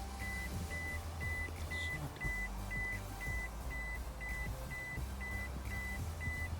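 A high electronic beep repeating evenly about twice a second, over a low bass drone that shifts in pitch every second or two.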